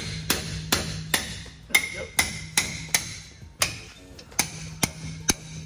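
Sharp metallic clicks, about two or three a second in an uneven rhythm, as a wrench is worked back and forth on a bolt under the truck's front end.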